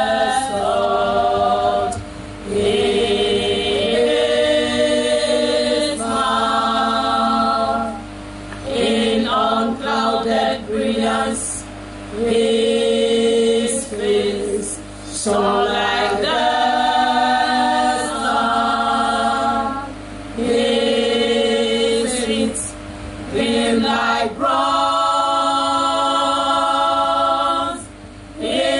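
Church choir singing in harmony behind a woman's lead voice, in phrases of about two seconds with short breaks between them, over a steady low hum.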